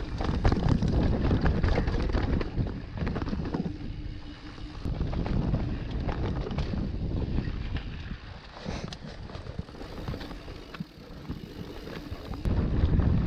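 Wind buffeting the rider's camera microphone over the rumble and rattle of a mountain bike riding a trail, with many short clicks and knocks as it runs over bumps; the noise swells and dips a few times.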